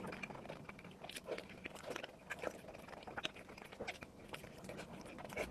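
Close-miked chewing and biting of food, a string of irregular wet clicks and smacks from the mouth.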